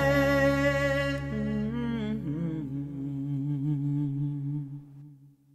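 End of a sung intro jingle: a voice humming held notes over steady low musical tones, fading away about five seconds in.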